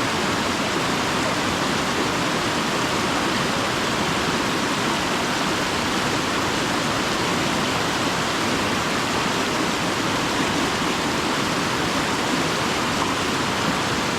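Steady rushing of river water flowing over rocks, an even hiss that holds constant throughout.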